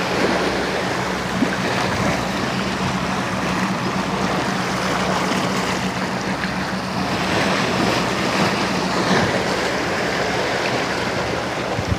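Sea waves washing against shore rocks, with wind buffeting the microphone and a steady low hum underneath.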